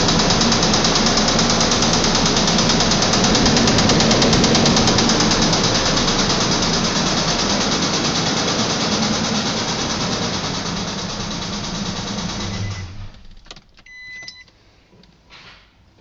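Nissan Pathfinder engine running with a rhythmic knock, the connecting rod knock of a spun rod bearing shell. The engine shuts off about 13 seconds in, followed by a short beep and a few light clicks.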